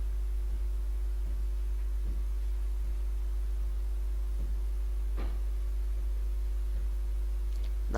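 Steady low electrical mains hum with a few faint higher tones over it, and a few faint ticks.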